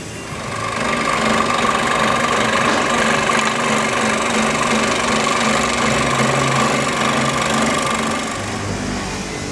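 Electric scroll saw running and cutting thin wood, a steady mechanical whine from the reciprocating blade. It starts about half a second in and eases off near the end.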